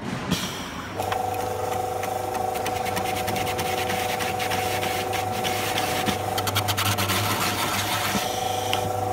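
Electric coconut peeling machine spinning a green young coconut against its cutting blade. A steady motor whine starts about a second in, with a fast crackle of the husk being shaved off.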